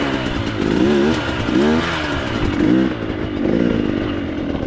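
Dirt bike engine revving up and dropping back about three times, then running more steadily near the end. The carburetor has just been tuned.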